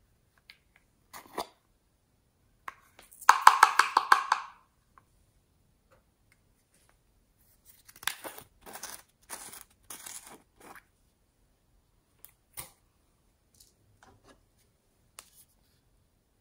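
Small plastic slime containers being handled and opened by hand. About three seconds in comes a dense run of rapid crackling clicks and rasps lasting about a second, the loudest sound. From about eight to eleven seconds there is a series of short rasps, with a few separate plastic clicks between.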